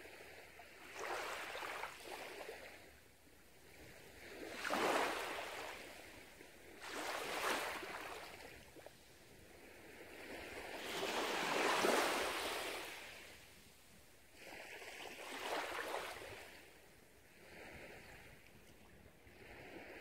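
Small waves washing up onto a sandy beach, each swash rising and fading every few seconds, about six in all, with the largest about midway.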